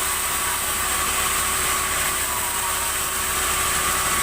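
Sawmill machinery running steadily, a constant mechanical drone with a steady high whine over it.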